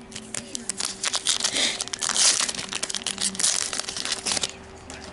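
Foil wrapper of a Topps trading card pack crinkling and being torn open by hand, a dense run of crackles that stops about four and a half seconds in.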